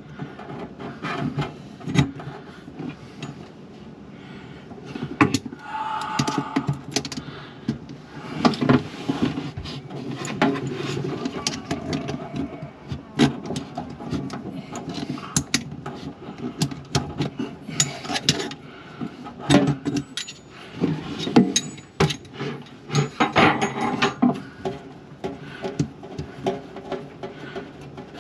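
Wrench clicking and scraping on the nut of a braided stainless faucet supply hose at a plastic push-fit fitting as it is unscrewed, with irregular knocks and rattles of the tool and plumbing.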